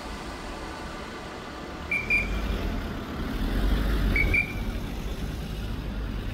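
Engine drone of a firefighting plane flying overhead, swelling about two seconds in and falling away sharply a little after four seconds. A short high beep repeats about every two seconds.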